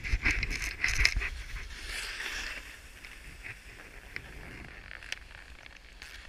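Edges scraping and hissing over packed snow as a rider slides downhill, with a low rumble of wind on the microphone. Loudest in the first two to three seconds, then easing to a softer hiss with a few sharp clicks.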